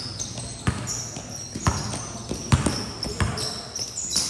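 A basketball bouncing on a hard court about six times at an uneven pace, with the short, high squeaks of sneakers on the court surface throughout.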